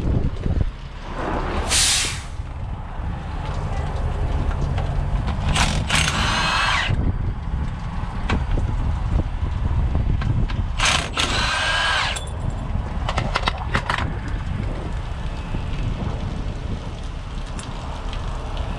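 Milwaukee cordless impact wrench run in three short bursts on the driveshaft bolts at the truck's rear differential, its pitch climbing as the bolts spin loose, followed by a few sharp metal clicks. A low steady rumble sits underneath.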